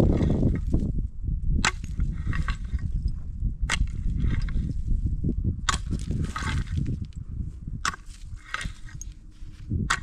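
Sharp strikes of a hand tool, about one every two seconds, each followed about half a second later by a short scraping rustle, with a low rumble underneath.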